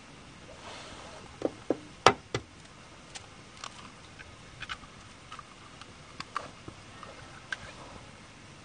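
Sharp clicks and knocks of cooking handling at a portable gas stove, as oil is poured into a frying pan and an egg is cracked in. A cluster of knocks comes about one and a half to two and a half seconds in, the loudest about two seconds in, then lighter scattered ticks follow.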